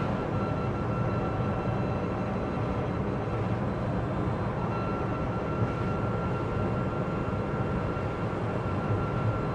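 Cabin noise inside a Citroën Ami electric car driving steadily on wet roads: a constant rumble of tyres and road, with a thin, steady high whine over it.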